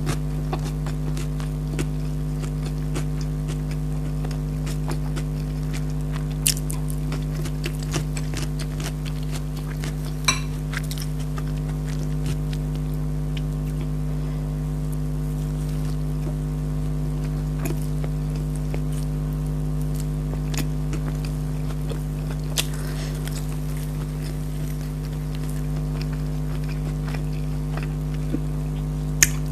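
A person eating naan, with scattered short clicks and crunches of biting and chewing over a steady low hum.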